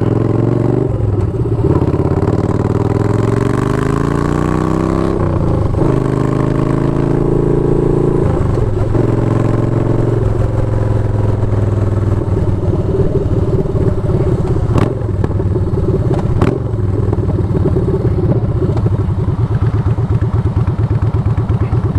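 Yamaha Bolt 950's air-cooled V-twin accelerating away, its note rising in pitch and dropping back at each upshift, three gear changes in the first ten seconds or so. It then runs at a steady cruising note, with two short clicks around fifteen and sixteen seconds in.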